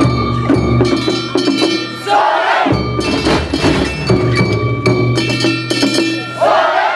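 Festival float music: fast, continuous clanging of struck metal gongs and bells over a steady low drum. Two short shouts break in, about two seconds in and again near the end.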